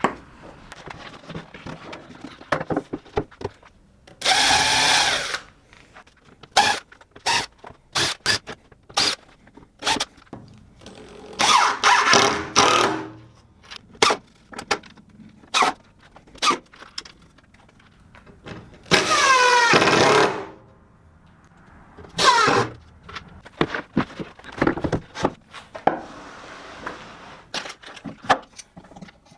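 Power drill running in four short bursts of about a second each, its pitch bending up as it spins, with many sharp clicks and knocks between bursts from clamps and wood being handled.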